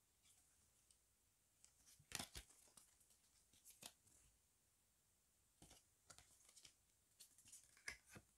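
Faint rustles and flicks of stiff paper photocards being handled and slid against one another, coming in scattered short bursts, loudest about two seconds in and again near the end.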